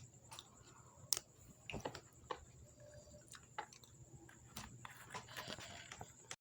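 Faint, scattered eating sounds: a few soft crunches and mouth clicks, coming closer together near the end.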